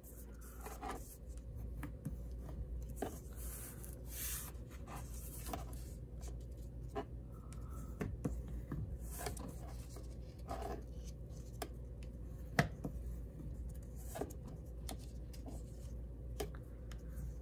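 Cardstock being folded and creased by hand on a tabletop: scattered paper rustles, light taps and scrapes, with a bone folder pressed and drawn along the folds. A low steady hum lies underneath.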